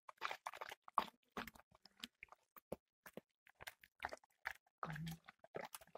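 Doberman chewing its food, a faint, irregular run of short crunches and clicks of jaws and teeth.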